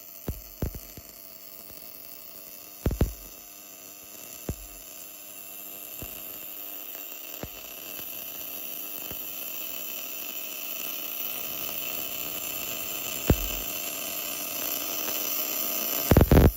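Automatic wire-feed build-up welding inside a worn bore: a steady arc hiss that grows slowly louder, broken by a few sharp pops, the loudest about three seconds in and a quick cluster at the end.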